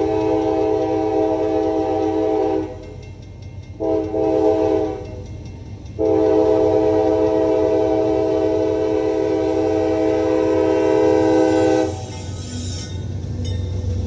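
A CSX freight locomotive's multi-chime air horn sounds three blasts: a long one already going at the start, a short one, then a long one that ends near the end. This is the close of a grade-crossing signal. The low rumble of the passing freight train runs under the horn.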